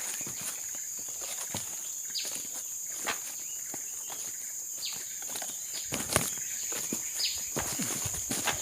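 A steady high-pitched insect drone, with scattered ticks and rustles and a few short chirps falling in pitch.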